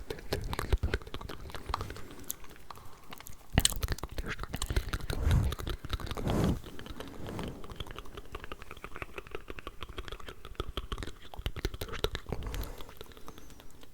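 Layered ASMR mouth sounds: a dense stream of small wet clicks and smacks, with a few louder pops a few seconds in.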